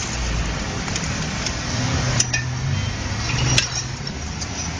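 Metal pole-climbing irons clinking against a concrete pole as a man steps up it: two sharp metallic clinks about a second and a half apart, over a steady low engine hum.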